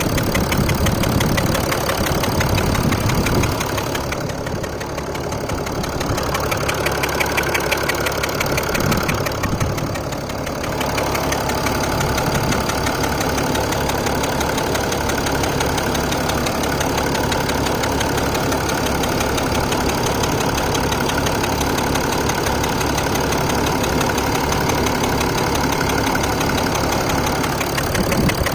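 Mercedes OM642 3.0-litre V6 turbodiesel idling steadily with a fast, metallic ticking over the engine sound. An independent mechanic judged the tick a normal noise for this engine.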